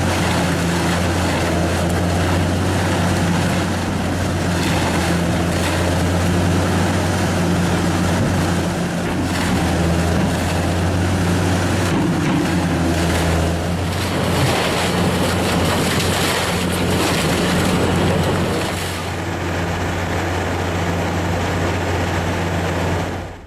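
Arjes Raptor XXL industrial shredder running, its Cat C18 diesel engine a steady low drone under a dense, rushing shredding noise. The sound eases slightly near the end.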